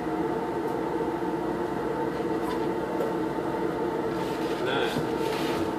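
A steady machine hum with a few light clicks and rattles as a circular saw is handled and its blade depth is set, with a brief scraping rustle about five seconds in.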